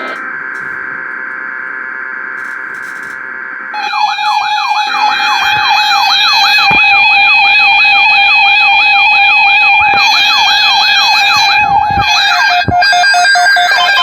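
Loud electronic siren-like alert tone. A steady chord of tones holds for about four seconds, then a rapid up-and-down warbling sweep runs over a steady lower tone.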